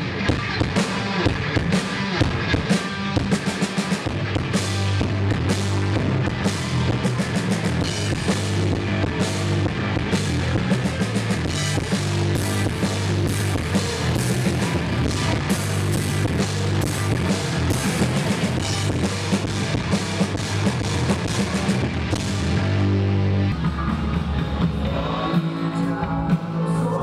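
Punk rock band playing: drum kit, bass and electric guitars, loud, with dense drum hits; the music changes about three-quarters of the way through.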